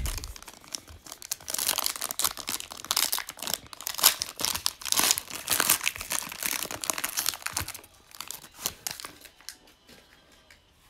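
Foil trading-card pack wrapper being torn open and crinkled by hand, a dense crackle that thins out near the end.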